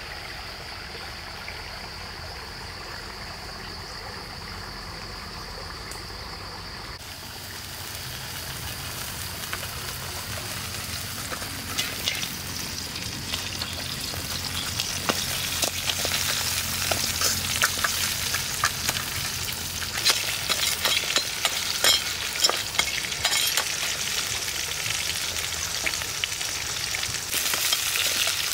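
Insects buzzing steadily for the first several seconds, then food frying in hot oil in a pan: a sizzle that grows louder, with frequent crackles and pops.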